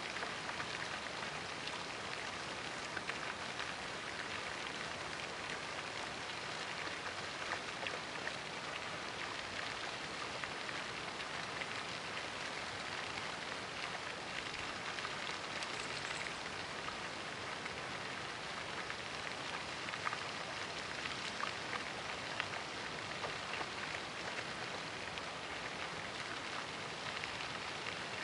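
Steady splashing hiss of a pond fountain's spray falling back onto the water, with a few faint clicks scattered through it.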